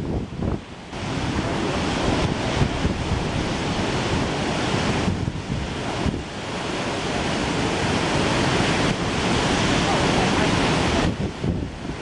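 Ocean surf breaking and washing in a steady rush, with wind buffeting the microphone in gusts.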